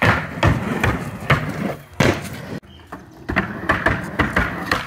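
Skateboard on backyard ramps: a run of sharp clacks and knocks as the board and trucks hit the ramp and coping, with wheels rolling between them. The strongest hits come in the first two seconds; after a brief lull there is a quicker series of lighter clicks.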